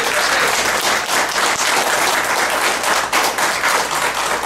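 Audience applauding, a dense clapping of many hands.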